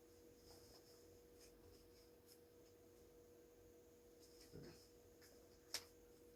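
Near silence: room tone with a steady faint hum, a few soft rustles and one sharp click near the end.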